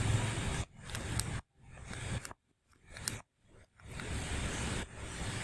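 Steady background hiss of the recording, cutting out to near silence several times about a second in, with a few faint high clicks.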